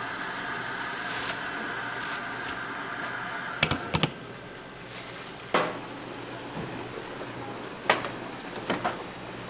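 Food-stall kitchen work: a steady hum, then several sharp clanks and knocks, a quick cluster of three a little before halfway and single ones later.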